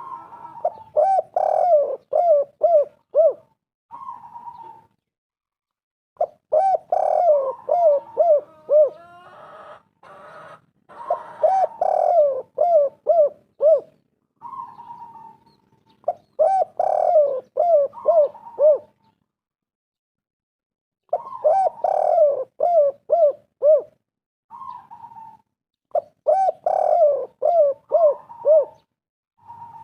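Spotted dove (tekukur) cooing. It repeats phrases that start with a sliding coo, followed by five or six quick, short coos, each phrase about three seconds long. The phrases come about every five seconds, several with a single short coo tagged on after.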